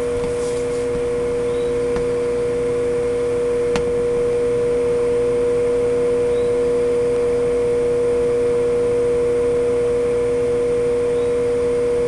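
Egg incubator running with a steady electric hum, a strong low tone with its overtone. Three faint short peeps, typical of a chick inside a pipped egg, and a single light click about four seconds in.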